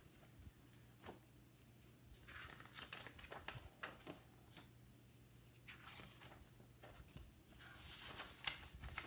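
Pages of a large picture book being turned and flipped, paper rustling and flapping in two bouts, about two seconds in and again more loudly near the end, over a faint steady low hum.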